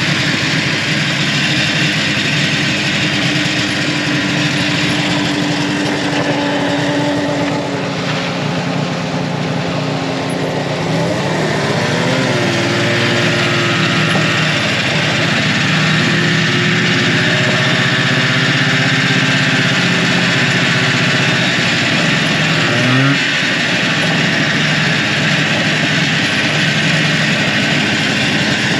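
A vehicle engine running steadily under way, its pitch rising briefly about eleven seconds in and again about twenty-three seconds in.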